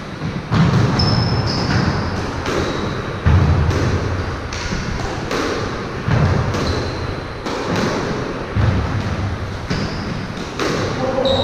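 Squash rally: the rubber ball is struck and booms off the walls of the enclosed court, a heavy thud about every two to three seconds. Between the hits come short, high squeaks of court shoes on the wooden floor.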